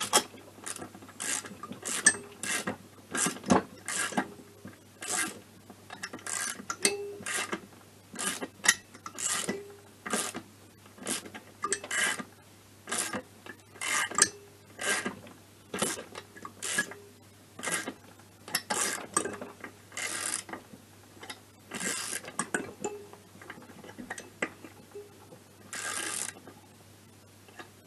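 Socket ratchet clicking in short runs, about one or two a second, as it is swung back and forth on a stud-setting tool over a cylinder stud in an MBK scooter crankcase. The ratchet is set the wrong way round, so the pawl just clicks over without driving the stud in.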